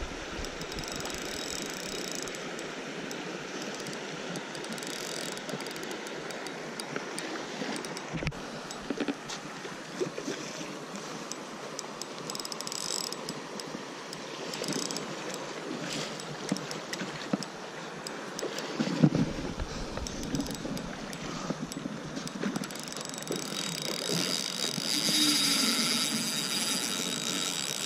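Spinning reel being wound, its gears and drag ticking steadily as a hooked salmon is played on the line, over the rush of a shallow creek.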